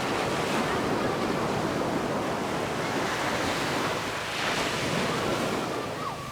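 Ocean surf washing onto a beach: a steady rush of breaking waves, with one wave surging louder about four seconds in.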